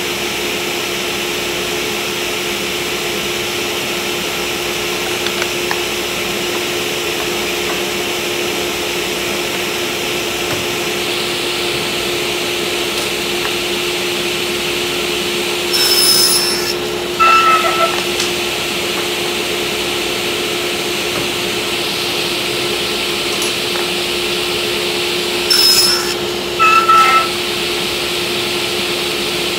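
Table saw with a crosscut blade running steadily while kerfs are cut into plywood. Twice, about halfway through and again near the end, the sound gets louder and rings briefly as the blade cuts through the wood.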